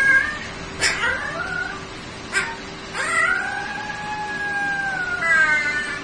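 Husky puppy howling: a few short yelping calls in the first two seconds, then one long howl that rises, holds and slides down, breaking into higher wavering notes near the end.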